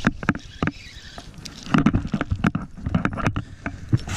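Irregular knocks and clicks from handling a spinning rod and landing a small Atlantic mackerel on a wooden pier, loudest about halfway through.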